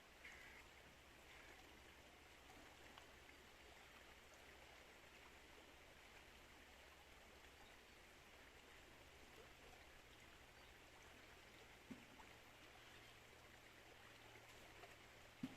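River water flowing faintly and steadily, with a low hum underneath and two soft knocks, one about two-thirds of the way through and one at the end.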